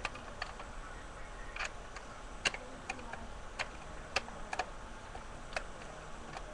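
Irregular light clicks and taps, about a dozen, unevenly spaced, the loudest about two and a half and four seconds in.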